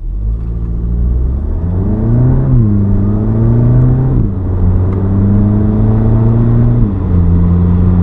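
Volkswagen Mk7-generation GTI's turbocharged 2.0-litre four-cylinder, through a COBB cat-back exhaust, accelerating through the gears, heard from inside the cabin. The engine note climbs in pitch, then drops at each upshift, about two and a half, four and seven seconds in.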